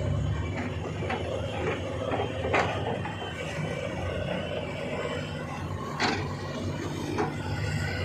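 Machinery running with a steady low hum and mechanical clatter, with sharp knocks about two and a half seconds in and again about six seconds in.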